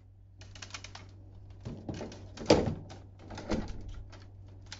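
Hard plastic parts of a DX Tridoron toy car clicking and knocking as the toy is handled and its parts are worked: a string of irregular clicks, with the loudest knock about two and a half seconds in.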